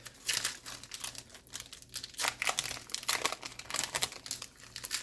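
Plastic packaging crinkling and rustling as it is handled, in quick irregular crackles.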